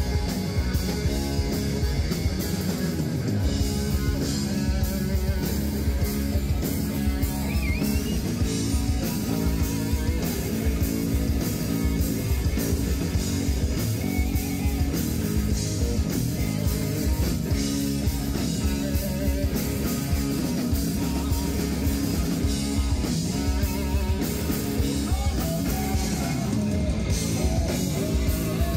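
Rock music with guitar and a steady drum beat, as played live on stage.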